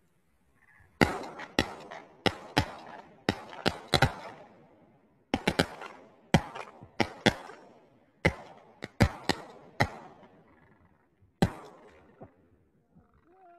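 Shotguns fired at a flock of cranes: about twenty shots in quick, irregular volleys from several guns, starting about a second in and running for roughly ten seconds, with one last shot near the end.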